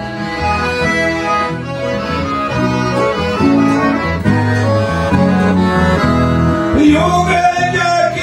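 Accordion and acoustic guitar playing a gaúcho folk tune together, held chords over a bass line. A man's singing voice comes in near the end.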